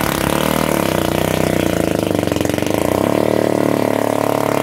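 Small 6.5 hp single-cylinder longtail (ketinting) boat engine running hard as a 4-metre racing boat speeds across the river: a steady, loud engine note that shifts slightly in pitch about three seconds in.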